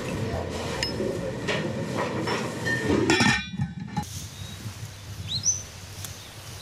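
Busy kitchen clatter of dishes and utensils, with clinks and knocks. It cuts off abruptly about three seconds in, leaving quieter outdoor ambience with a brief high chirp.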